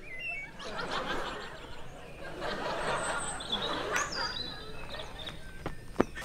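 Sitcom laugh track: a crowd of people laughing, swelling about half a second in and tailing off near the end. A sharp knock about six seconds in.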